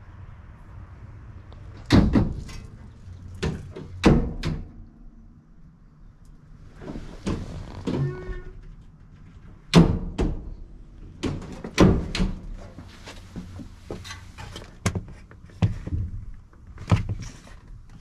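Irregular knocks and thumps inside a truck's box body, a dozen or so sharp ones spread unevenly, the loudest about two, four and ten seconds in, with a short squeak about eight seconds in.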